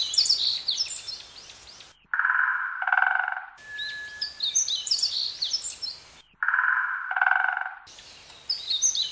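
Rainforest ambience of many birds chirping and twittering in quick, high calls, broken twice by a lower, buzzy call lasting about a second and a half; the pattern repeats about every four seconds, like a looped recording.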